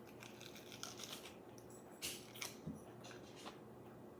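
Faint eating sounds: biting and chewing a lettuce-wrapped burger, with scattered short crisp crackles, a few sharper ones near the middle.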